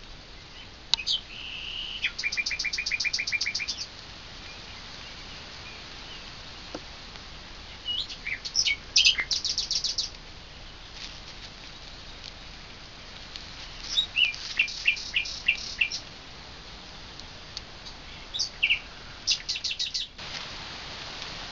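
A songbird singing four short phrases, roughly every five or six seconds. Each phrase is a few quick high notes ending in a rapid trill, heard over a steady background hiss.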